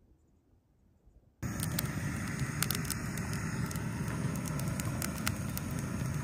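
Near silence at first, then, after about a second and a half, a wood campfire burning with frequent sharp pops and crackles over a steady rushing noise.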